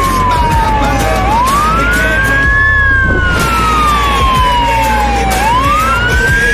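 Emergency vehicle siren in wail mode: a single tone that climbs quickly and then falls slowly, repeating about every four seconds.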